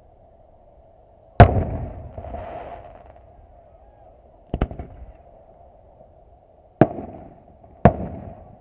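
Aerial firework shells bursting: four sharp booms, the first and loudest about a second and a half in with a long rumbling tail, a quick double crack in the middle, and two more close together near the end.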